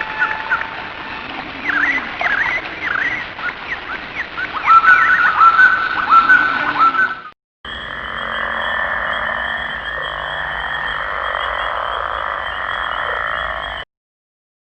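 Two nature sound effects back to back. First come repeated short animal calls with quick upward hooks for about seven seconds, the loudest ones in the second half. After a brief gap comes a steady, unbroken wash of sound with a high steady tone running through it, which cuts off abruptly about a second before the end.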